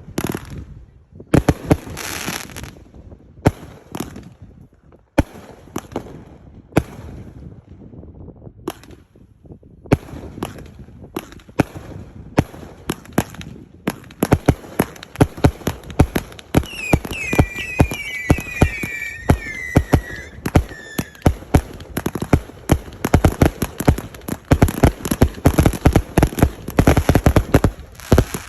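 Fireworks going off: a running string of sharp bangs and cracks that grows denser from about halfway through, with several falling whistles in the middle.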